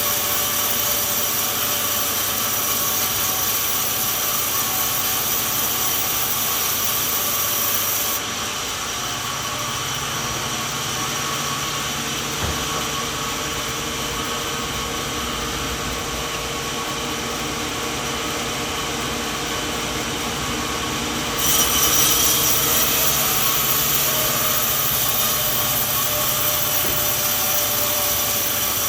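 Sawmill saw running and cutting through a coconut log with a steady mechanical noise. The sound changes abruptly twice: it dulls about 8 seconds in and turns brighter and louder again about 21 seconds in.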